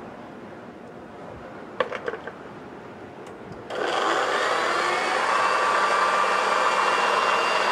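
A few knocks about two seconds in, then a countertop blender's motor starts a little after halfway and runs steadily, chopping tomato pieces in an open, uncovered jar.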